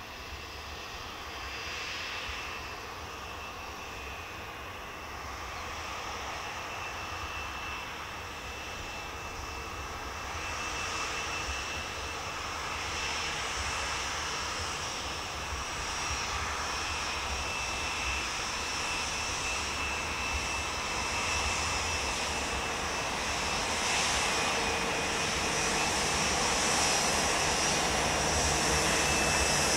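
Boeing 787's Rolls-Royce Trent 1000 jet engines at taxi idle: a steady whine over a rushing hiss, growing gradually louder as the airliner taxis closer.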